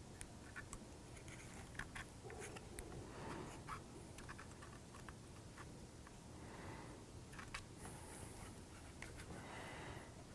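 Faint, scattered small clicks and taps of laser-cut kit pieces being handled and fitted by hand, with soft breaths about every three seconds.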